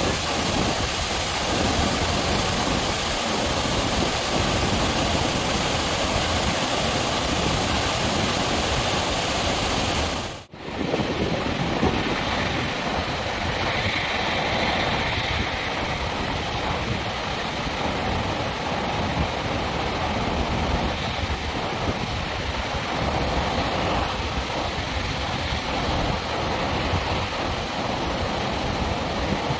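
Steady rush of water from a concrete arch dam's curtain-like ('sudare') spillway release, several jets pouring down the curved dam face. The sound drops out briefly about ten seconds in, then resumes.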